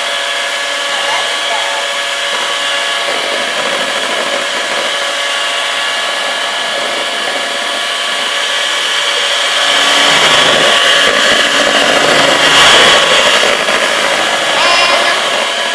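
Electric hand mixer running steadily, its motor whining as the beaters whip a cream mixture in a plastic bowl; the sound grows louder and rougher about ten seconds in.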